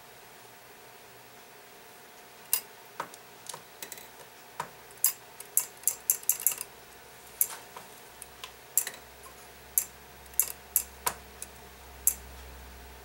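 Sharp metallic clicks and taps, irregular and in quick clusters, from hand work with a small tool on the brass strike lever and rack of a grandfather-clock movement.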